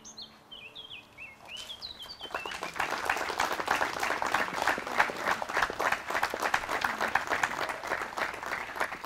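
Audience applauding, the clapping swelling in about two seconds in and staying dense. A bird chirps before the clapping starts.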